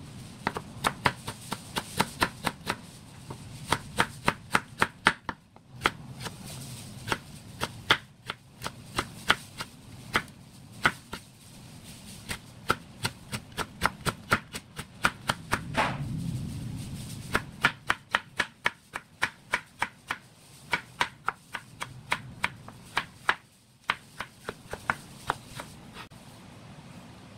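Kitchen knife chopping Korean radish into matchsticks on a wooden cutting board: quick runs of sharp knocks, about five a second, with short pauses between the runs.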